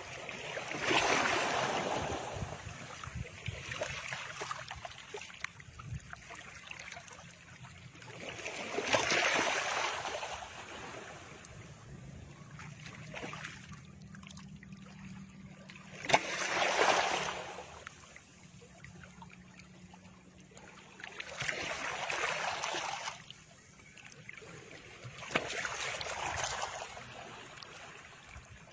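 Background soundtrack of soft, wave-like whooshing swells that rise and fade every few seconds, with a faint low steady hum beneath them through the middle.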